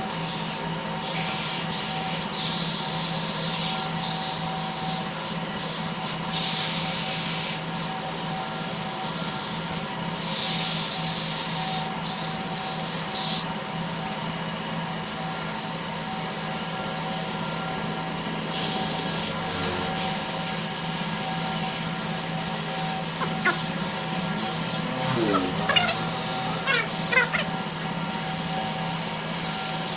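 Sandpaper held against a wooden workpiece spinning on a wood lathe: a steady abrasive hiss, broken by short gaps, over the steady hum of the lathe motor, with a few brief squeaks near the end.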